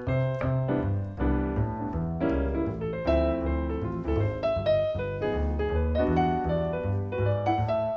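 Background piano music: a continuous run of piano notes over a low bass line.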